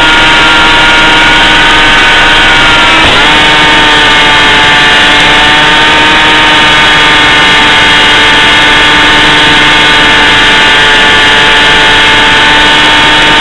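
Electric motor and propeller of a BlitzRCWorks Sky Surfer RC plane whining loudly at a steady pitch. The pitch dips briefly about three seconds in, as with a quick throttle change, then holds steady again.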